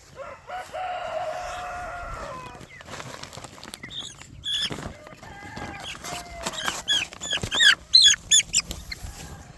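Young poultry chicks calling: a drawn-out call in the first couple of seconds, then a run of short, high peeps from about four seconds in that comes faster and louder near the end.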